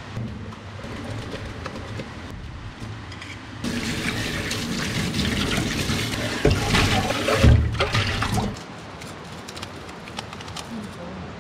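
Water from a pull-out spray faucet gushing onto a pot in a stainless steel sink as it is rinsed, starting a few seconds in and stopping about five seconds later, with two knocks of the pot against the sink near the end of the spray. Before it, light clatter of dishes being handled.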